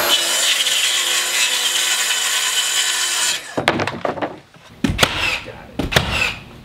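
DeWalt FlexVolt cordless track saw cutting a sheet of OSB sheathing along its track, a steady high whine that stops about three and a half seconds in. A few sharp knocks follow near the end.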